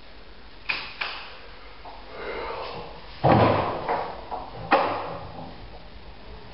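Wooden interior door knocking and banging: two light clicks, then a heavy thump about three seconds in, the loudest, and a sharp bang about a second and a half after it.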